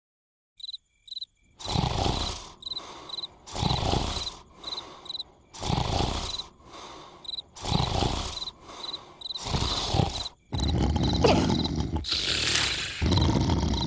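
Cartoon snoring: loud, rasping snores that swell and fade about every two seconds, over crickets chirping. About ten seconds in, the breaks close up into one louder, unbroken stretch of noise.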